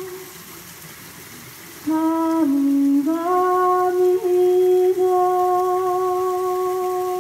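A woman's solo voice singing unaccompanied. After a short pause she starts a new phrase about two seconds in, steps down in pitch, then rises to one long held note that lasts about four seconds.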